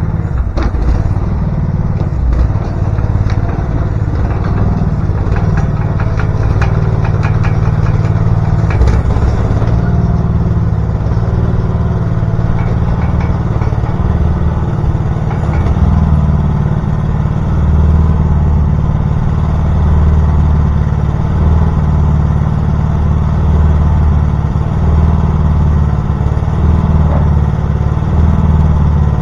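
Small gas engine of a Champion 37-ton log splitter running steadily. There are scattered clicks and clatter over the first ten seconds or so.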